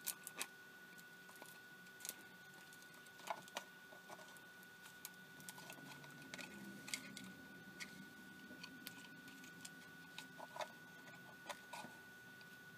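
Faint, irregular clicks, taps and rustles of a night vision monocular's image intensifier tube, in its metal shield and trailing wires, being handled and fitted into the plastic housing. A faint steady high whine runs underneath.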